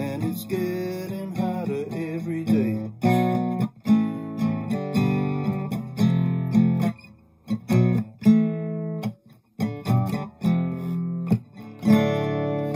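Steel-string acoustic guitar strummed in chords, breaking into separate chords with a few short pauses after about seven seconds.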